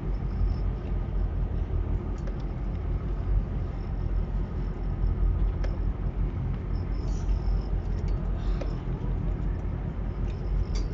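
Fishing boat's engine running with a steady low rumble, with a few light clicks and knocks over it.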